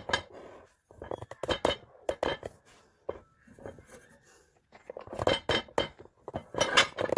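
Scattered clinks and knocks of cookware being handled on a stovetop: a saucepan and a glass lid, in short clusters of sharp taps with quiet gaps between.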